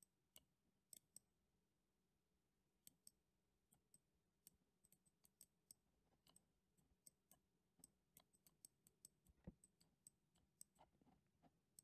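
Faint computer mouse clicks over near silence, coming irregularly about one or two a second, with the loudest about nine and a half seconds in.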